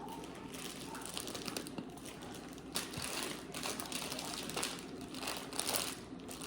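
Irregular crinkling and rustling of a packet as its contents are poured out into a mixing bowl.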